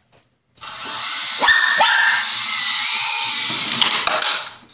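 Toy RC helicopter's electric motor and rotors whirring loudly for about four seconds, the pitch gliding as it flies. There are sharp knocks about a second and a half in and again near the end as it strikes things, and a small dog barks.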